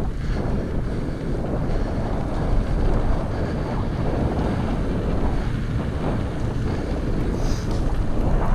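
Wind buffeting the microphone of a moving mountain bike, a steady low rumble.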